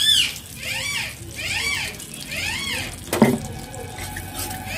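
An animal's high squeaky call repeated about once a second, each call rising and then falling in pitch. There is a single metal clank of the spatula against the aluminium kadai about three seconds in.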